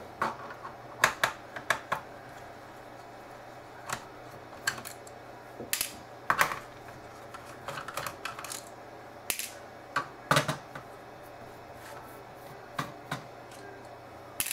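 Small screwdriver clicking and tapping against screws in the plastic underside of a Samsung NP355V5C laptop as the screws holding the keyboard are backed out: scattered, irregular sharp clicks with short quiet gaps.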